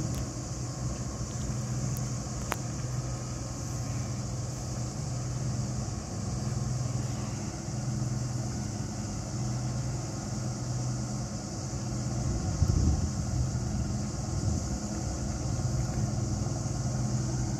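Diesel engines of motor lifeboats running on the water, a steady low engine hum, with a steady high hiss above it. A brief low rumble about twelve seconds in is the loudest moment.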